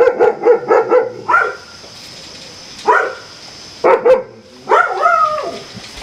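A dog barking: a quick run of about six barks in the first second and a half, then single barks about three and four seconds in, and a longer bark that falls in pitch near the end.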